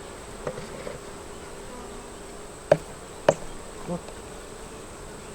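Honey bees buzzing steadily in a steady hum over an opened hive, with two sharp knocks a little over half a second apart about midway through.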